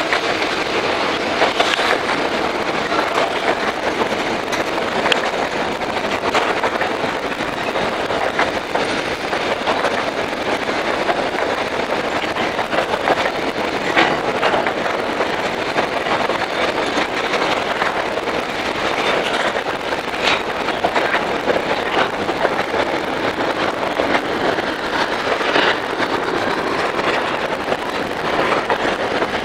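Wagons of a long metre-gauge mixed freight train rolling past below: a steady rumble of steel wheels on rail with a few scattered clicks.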